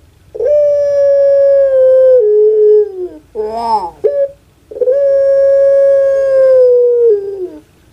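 Puter pelung (domestic ringneck dove) calling: two long, held notes, each about two and a half seconds, that step down in pitch and fall away at the end, with a short rising-and-falling note between them.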